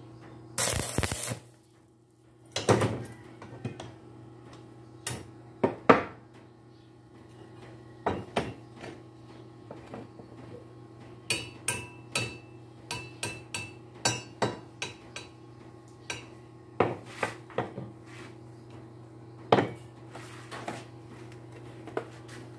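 A short stick-welding arc crackles for under a second near the start, a tack weld on the steel bender parts. It is followed by a long run of sharp metallic clinks and taps of steel on steel, some of them ringing.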